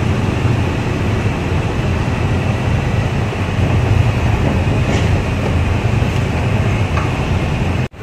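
Steady road and engine noise inside a moving car's cabin, a low rumble with no let-up, breaking off abruptly near the end.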